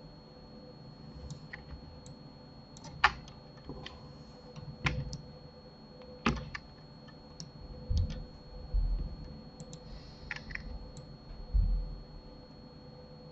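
Irregular, scattered clicks of a computer mouse and keyboard keys, with a few dull low thumps in the second half, over a faint steady hum.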